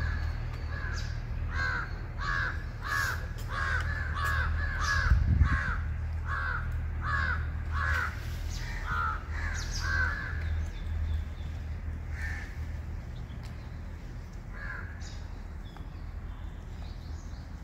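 A crow cawing in a quick run of harsh calls, about two a second, for roughly ten seconds, then twice more singly, over a steady low rumble.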